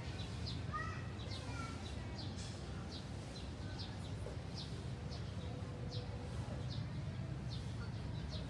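A small bird chirping over and over, short high single chirps coming about once every half-second to second, over a steady low background rumble.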